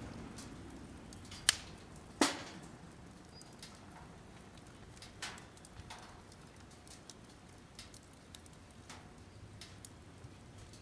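Burning firewood crackling in a fire pit, with two sharp loud pops about one and a half and two seconds in, then scattered fainter cracks.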